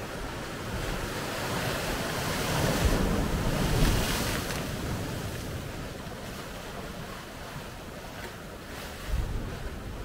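Sea waves washing in and breaking against rocks, the surf swelling to a peak about four seconds in, then ebbing, with another surge near the end. Wind buffets the microphone.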